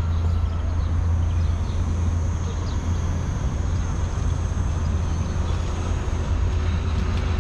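Outdoor city street ambience: a steady low rumble, with vehicles the most likely source.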